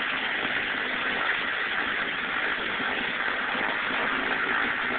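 Cessna 310R's twin piston engines and propellers running steadily at low power while taxiing, heard from inside the cabin as an even hiss-like drone.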